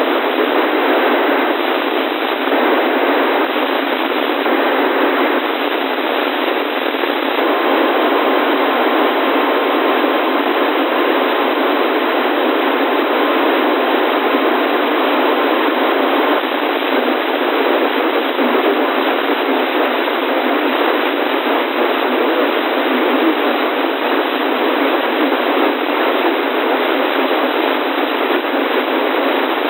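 Radio static: a steady, even hiss of a weak or empty radio channel, squeezed into a narrow band like a receiver's audio, with a faint steady whistle through the middle part.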